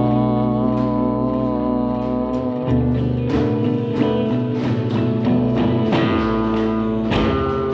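Solo guitar played live: a held, ringing chord for the first couple of seconds, then single notes picked one after another, about one or two a second.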